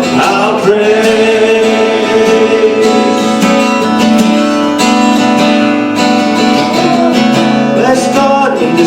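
Worship band music without words: strummed acoustic guitar over sustained held notes.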